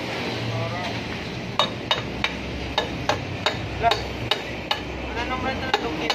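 Hammer blows ringing on metal, about ten sharp knocks in uneven succession, as a steel bar is driven against the block of a 1982 Mitsubishi L300 petrol engine. The work is freeing parts from an engine that seized after its oil pump stopped delivering oil.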